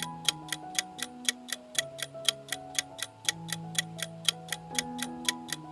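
Countdown timer ticking sound effect, clock-like ticks at about four a second, over soft background music with held notes.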